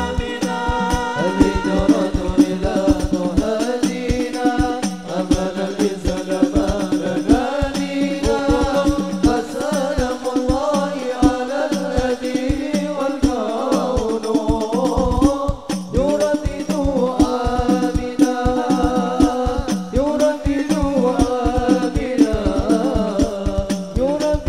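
Banjari sholawat: several male voices singing a devotional song over an ensemble of rebana frame drums and bass drums beating a fast, steady rhythm.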